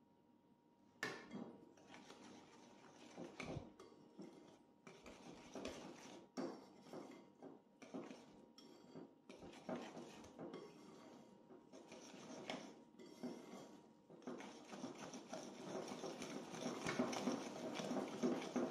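Wire hand whisk stirring flour into an egg, sugar and oil mixture in a ceramic bowl, its wires clicking and scraping against the bowl. The whisking grows busier and louder over the last few seconds as the mixture thickens into a paste.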